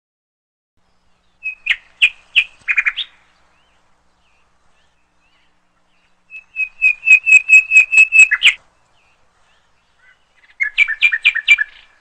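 Bird song: three bouts of quick, evenly repeated chirping notes, each a second or two long, separated by silence.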